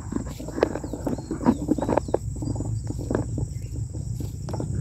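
Insects chirring in one steady, high, unbroken tone, over irregular footsteps and rustling of someone walking through muddy, leafy ground, the loudest step about a second and a half in.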